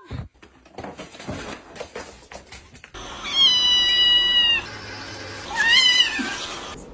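Light knocks and rustling, then a kitten meows twice: first one long, high, steady meow, then a shorter one that rises and falls.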